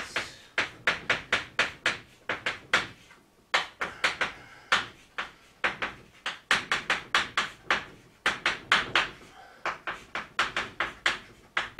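Chalk writing on a blackboard: quick, uneven taps and short scrapes of the chalk as kanji are written, several strokes a second, with a few brief pauses.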